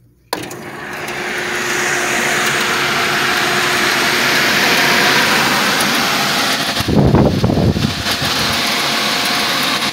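Belt-driven squirrel cage blower switched on: its electric motor and wheel start suddenly and spin up over about a second into a steady, loud rush of air with a faint hum. From about seven seconds in, the blast of air buffets the microphone.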